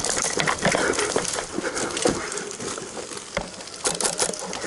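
Irregular sharp clicks and knocks of an airsoft skirmish, with a quick run of snaps near the end.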